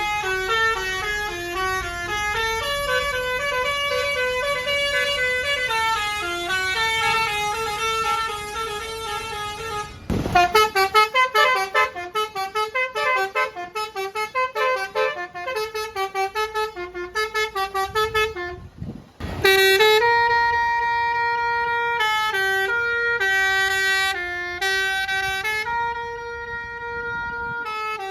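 A tour bus's Basuri telolet horn playing a tune in stepped notes. For about ten seconds it plays smooth, changing notes, then a fast run of short choppy notes, and after a brief break near the end it plays long held notes.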